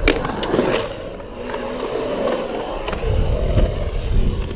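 Skateboard wheels rolling over a concrete bowl, a continuous gritty rumble that grows heavier about three seconds in, opened by a sharp clack of the board.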